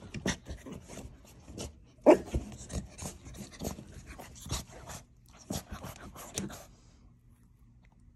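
French bulldog puppy squirming on its back on shag carpet: body and paws rubbing the carpet in quick scratchy strokes, with one short louder vocal noise about two seconds in. The rubbing stops about seven seconds in.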